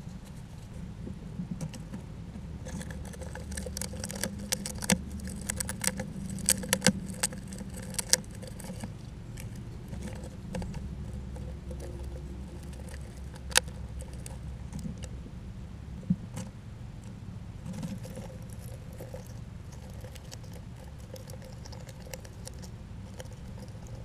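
Rodents feeding at a feeder: quick clicking, scratching and rattling as food and the feeder are handled, densest in the first third, then a few single sharp clicks. A low steady hum runs underneath.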